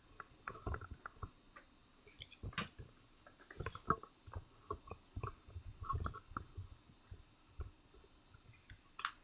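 Handling noise from a camera being moved and repositioned by hand: irregular knocks, clicks and rustles, with a sharp click near the end.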